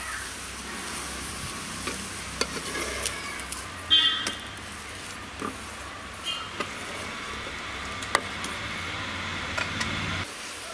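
Chapati sizzling in ghee on a flat iron tawa, with a metal spatula scraping and tapping on the pan as it is pressed and turned. The loudest scrape comes about four seconds in, and the sizzle stops abruptly near the end.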